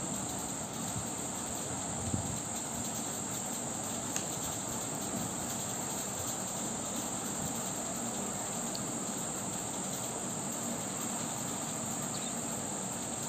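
Steady high-pitched background drone, with a couple of faint clicks of the knitting needles about two and four seconds in.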